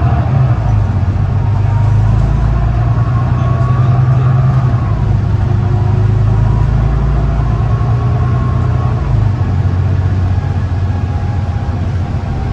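Volvo B9TL double-decker bus running, heard from inside the cabin: a steady low diesel engine drone with a faint whine that rises and falls in pitch. The engine note shifts about nine seconds in.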